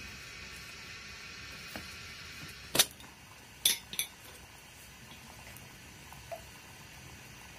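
Three sharp metal clinks in just over a second, the first the loudest, as a kettle on a wood fire and a small tea container are handled to add tea leaves, over a steady hiss.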